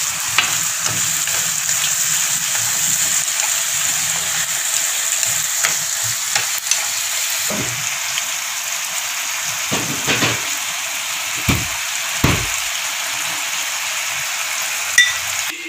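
Small fried birds sizzling steadily in sauce in a frying pan while being stirred with chopsticks, with scattered clicks of the chopsticks against the pan.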